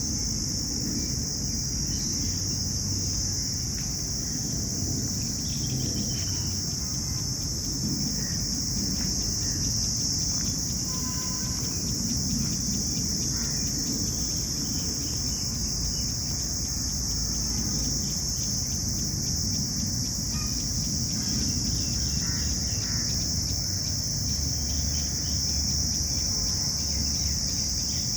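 A steady, high-pitched chorus of insects shrilling without a break, over a low rumble, with a few faint short bird calls scattered through.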